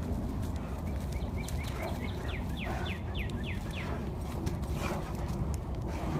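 Two dogs play-wrestling on wood chips, with scuffling and soft knocks over a steady low wind rumble on the microphone. About a second in, a bird sings a run of quick notes that turn into steep falling whistles, about three a second, for a few seconds.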